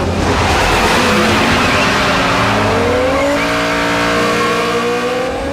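Car engine revving, its pitch rising in the second half, over a hissing screech like tyres squealing.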